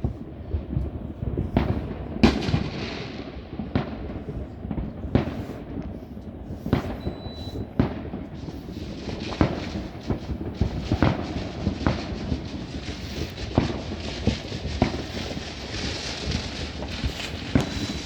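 Fireworks going off in irregular bangs and pops, with a low rumble between them. There is a sharp bang about two seconds in, and the bangs come more closely spaced through the second half.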